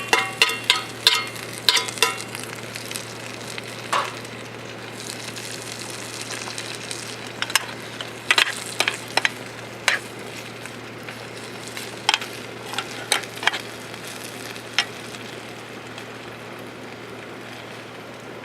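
Food sizzling as it fries in a pan, a steady hiss broken by sharp clicks and taps. The clicks come thick in the first couple of seconds, then scattered.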